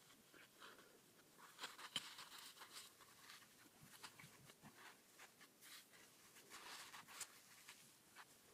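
Faint rustling and scraping of fibreglass muffler packing being pushed through a two-stroke muffler canister by hand, with scattered small clicks.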